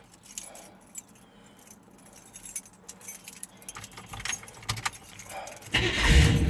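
Keys jangling and clicking as they are worked into the truck's ignition, then near the end the truck's engine starts with a sudden loud burst and settles into a steady low running sound.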